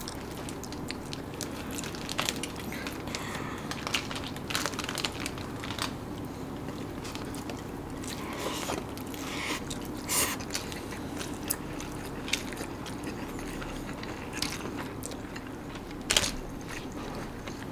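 Close-up eating sounds: chewing and crunching, with scattered short clicks and bites.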